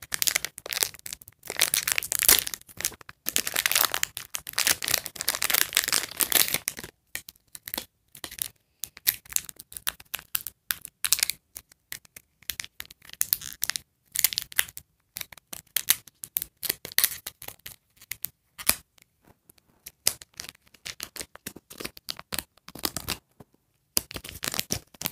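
Plastic toy-accessory packets being torn open and crinkled by hand, in irregular rustling bursts that are busiest for the first several seconds and then thin out into scattered rustles.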